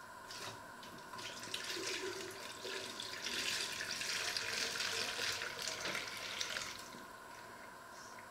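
Liquid poured from a pot through a funnel into a plastic jug, splashing. It starts about a second in, is loudest in the middle and trails off about seven seconds in.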